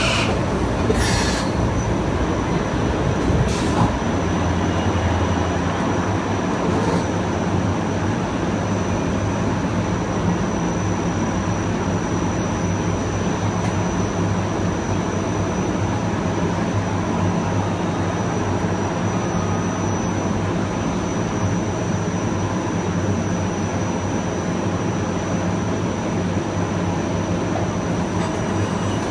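Kawasaki M9 electric multiple-unit train running at a steady speed, heard from on board: a steady rumble of wheels on rail with low hums and a thin, steady high whine. A few sharp clicks come in the first several seconds.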